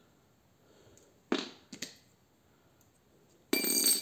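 Handling noises from a grafting tool and its parts: a sharp knock of hard plastic about a second in and a lighter click just after. Near the end comes a brief loud rustle or scrape.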